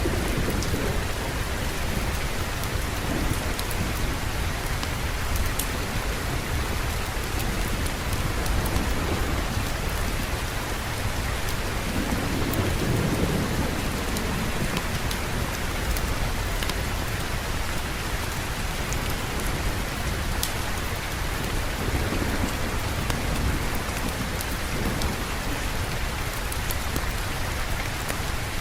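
Steady heavy rain falling, with a low roll of thunder swelling and fading about halfway through.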